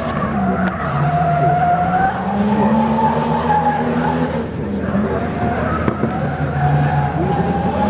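Nissan S14 drift car sliding sideways, its engine revving up and down and its rear tyres screeching.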